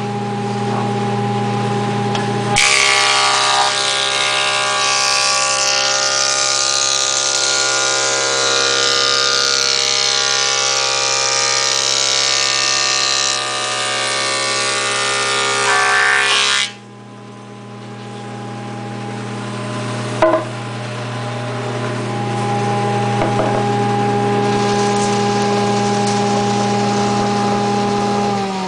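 Delta 22-101 thickness planer, with its 3 hp single-phase motor running steadily, planing rough-sawn cherry on a second pass. About two and a half seconds in, the cutterhead bites into the board and a loud cutting noise runs for roughly fourteen seconds. It then stops abruptly as the board clears, leaving the motor's hum, with a single knock a few seconds later.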